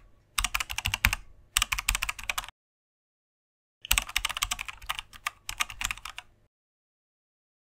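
Computer keyboard typing clicks in quick runs, with a pause of about a second in the middle: a typing sound effect timed to on-screen captions appearing letter by letter.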